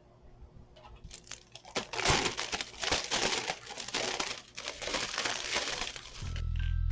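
Plastic packaging crinkling and rustling as it is handled, with many sharp clicks, starting about two seconds in. A low steady hum comes in near the end.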